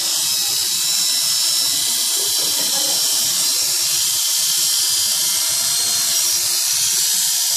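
Electric animal clippers running steadily as they shave a cat's fur, a constant buzzing whine with a high hiss.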